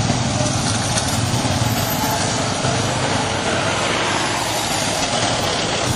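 A column of motorcycles riding past close by, many engines running together in a steady mixed engine sound.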